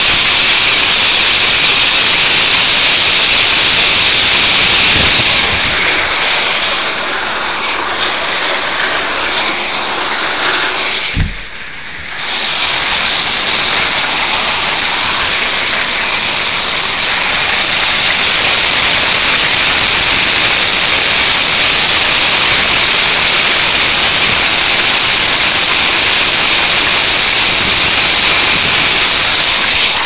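Strong gusting wind of about 45 mph blowing hail, buffeting the microphone as a loud, steady rush of noise. There is a low thump about eleven seconds in, and the rush eases for about a second right after it.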